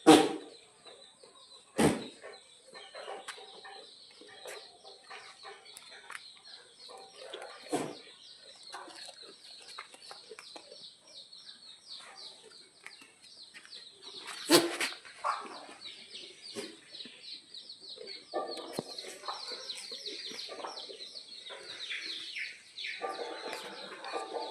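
Desi chickens clucking, with many short high cheeps throughout. Three sharp knocks stand out as the loudest sounds: one at the start, one about two seconds in and one about midway.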